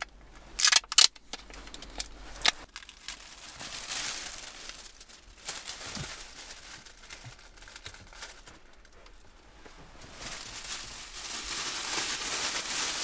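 Mylar space blankets crinkling as they are handled and pressed against the car's windows, with a few sharp rips about a second in. The crinkling grows toward the end.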